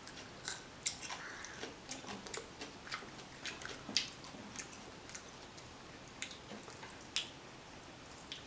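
Close-up chewing while eating: irregular wet clicks and smacks of a mouth working through food, several a second, with a few sharper clicks.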